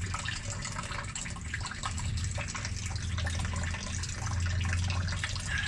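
Water being drunk as a hiccup remedy: liquid sounds with many small irregular clicks, over a steady low hum.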